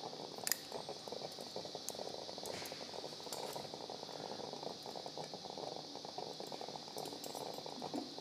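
Steady room noise with scattered light clicks and clinks of metal surgical instruments (needle holders and forceps) during skin suturing, one sharper click about half a second in.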